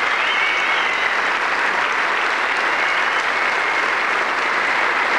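A large theatre audience applauding steadily, a dense, even clapping with a faint wavering high tone running through it.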